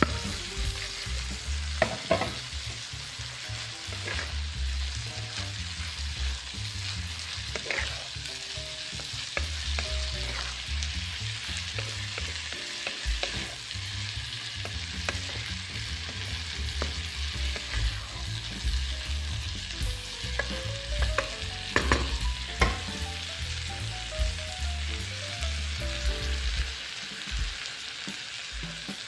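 Diced tugi (lesser yam), carrots and corn frying with corned beef in a pan: a steady sizzle while the mixture is stirred. A utensil knocks or scrapes sharply against the pan a few times.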